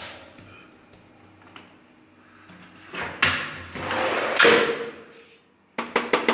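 Rustling and handling noise, then a light switch clicked several times in quick succession near the end, without the light coming on.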